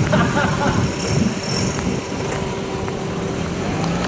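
A motor vehicle running on a road amid steady rushing noise, with a faint rising tone near the end.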